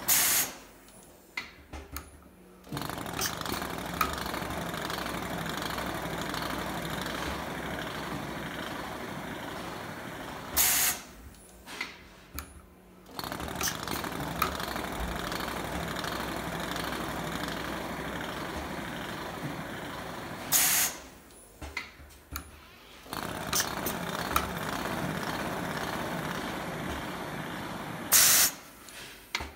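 WIS PrepStar automatic weft-removal machine working through its cycle: four short, loud hisses of compressed air, each followed by a quieter couple of seconds with a few clicks, then several seconds of steady mechanical running.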